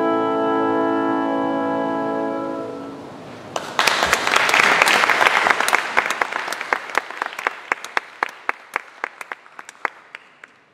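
Woodwind quintet of flute, oboe, clarinet, horn and bassoon holding the final chord of the piece, released about two and a half seconds in. After a short pause the audience applauds, dense at first, then thinning to scattered claps that fade out.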